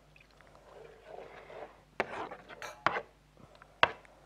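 Cooking utensil clinking against a frying pan while stirring a tomato sauce: a soft scraping stir, then three sharp clinks in the second half.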